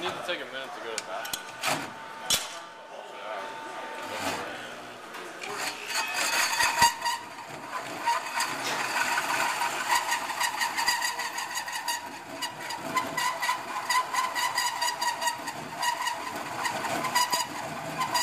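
Cordless drill driving a hole saw into a metal panel, the saw teeth grinding and chattering in the cut over the drill motor's whine. It is uneven and broken by clicks for the first few seconds, then runs steadily from about six seconds in.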